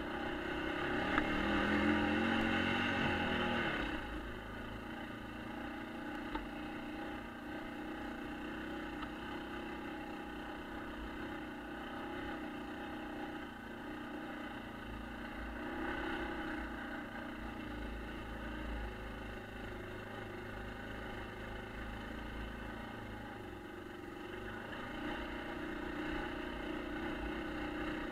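1996 Yamaha Kodiak ATV's single-cylinder four-stroke engine running as the machine is ridden along. It revs louder and higher for the first few seconds, then settles to a steady pull.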